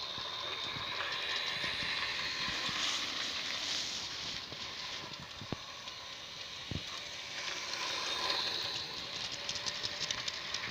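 Model DB class 139 electric locomotive running on toy track with its wagons: a steady electric-motor whirr and whine with wheels clicking on the rails. It swells and fades as the train goes round the loop past the camera.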